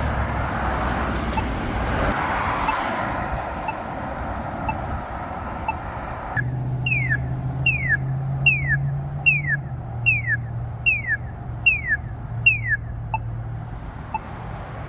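Polara iNS accessible pedestrian signal push button sounding over traffic noise. Faint locator ticks come first. About six seconds in, eight quick falling electronic chirps follow, a little over one a second: the walk indication for the crossing.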